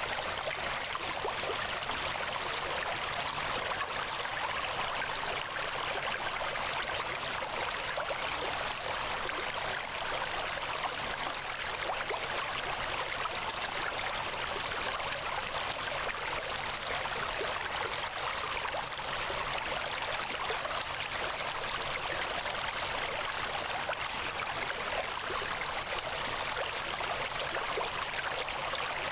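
Steady, unchanging rushing noise like a running stream, with a faint low hum beneath it.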